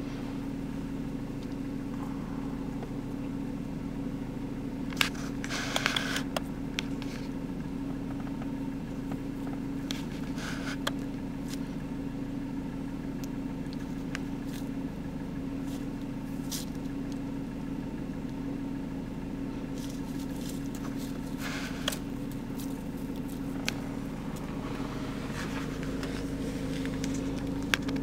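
Car engine idling with a steady low hum, heard from inside the vehicle, with a few scattered faint clicks.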